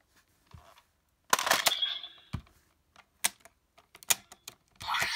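Hard plastic toy pieces clicking and knocking as a DX Wonder Ride Book and its driver are handled. A quick cluster of clicks comes about a second in, then single sharp clicks follow, about one a second.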